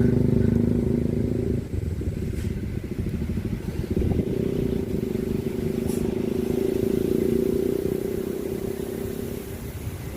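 A motor vehicle engine running steadily, its pitch changing about a second and a half in and then holding.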